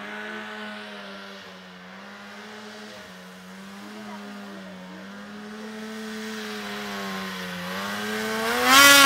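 Snowmobile engine running at a steady high pitch as the sled climbs through deep snow, growing louder and rising in pitch near the end as it comes up close.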